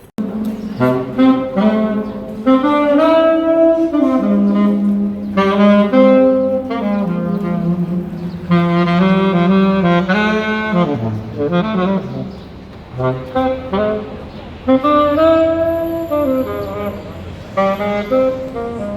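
A saxophone played live in a tunnel, a melody of held and sliding notes in phrases with short breaths between them, picked up by a smartphone's built-in microphone.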